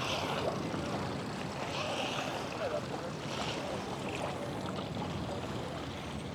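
Seaside ambience: a steady wash of small waves on a shallow sandy beach, with faint distant voices.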